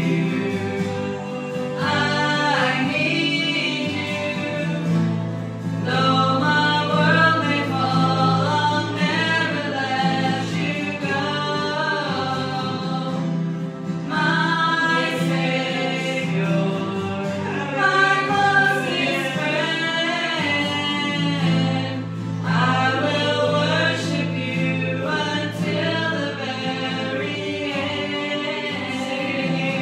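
Live gospel worship song: women singing, accompanied by electric keyboard and acoustic guitar.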